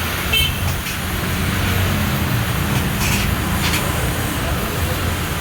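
A steady low mechanical rumble with a few short clicks over it.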